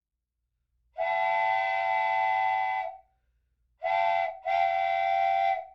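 Train horn sounding three blasts: a long one about a second in, then a short one and another long one, each a steady, clear tone.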